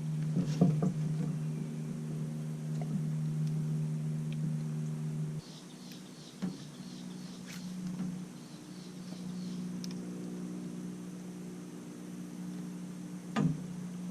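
A steady low mechanical hum that shifts slightly in pitch and drops in level about five seconds in, with a few sharp clicks and a run of faint high chirps in the middle.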